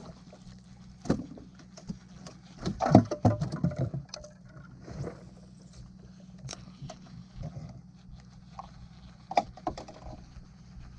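A hooked fish splashing at the surface beside a small boat as it is landed. The loudest part is a cluster of knocks and splashes about three seconds in, with a few single sharp clicks of fishing gear later.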